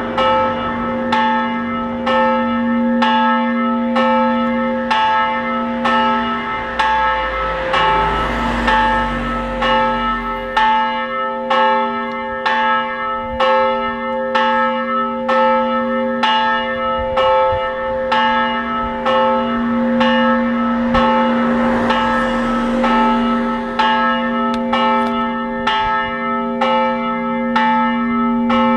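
A church's great bell swinging in its tower and ringing the noon bell. Its strokes come evenly, a little more than one a second, and each one's deep ringing carries on into the next.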